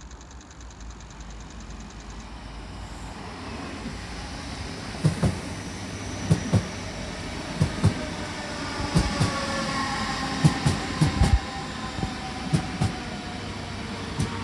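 DB Class 425 electric multiple unit running in, growing louder, its wheels thumping over rail joints in pairs from about five seconds in. From about the middle a whine slowly falls in pitch.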